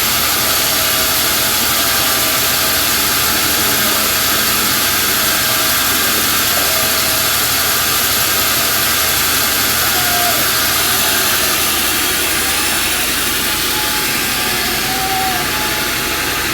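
Homemade band sawmill running: a loud, steady machine noise that eases slightly in the last few seconds.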